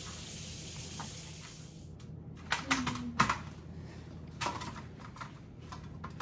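Running tap water hissing for about two seconds, then cut off. Light clicks and taps follow as wet salmon fillets are set on a metal wire rack in a sheet pan and dabbed with a paper towel.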